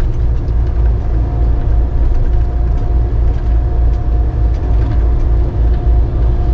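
Steady low road and engine rumble of a vehicle cruising on a freeway, heard from inside the cabin, with a faint steady whine above it.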